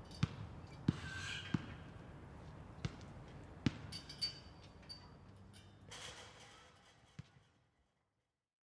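A series of sharp knocks or thuds at uneven intervals over a faint background, which fades out about seven seconds in.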